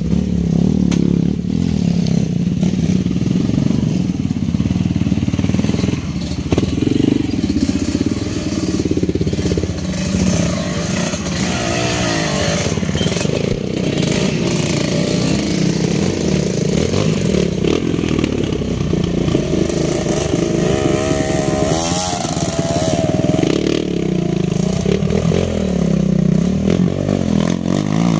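Trail dirt bike engine running as it is ridden off-road, the revs rising and falling repeatedly with throttle changes, with scattered knocks from the bike over rough ground.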